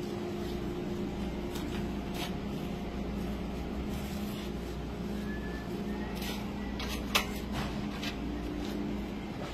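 Steady low machinery hum with scattered light clicks and knocks, and one sharp click about seven seconds in.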